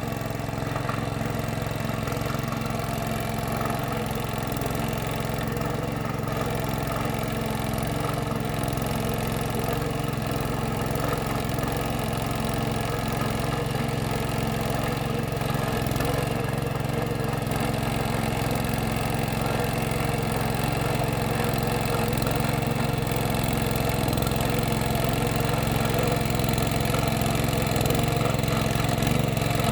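Tractor engine running steadily, growing slightly louder toward the end.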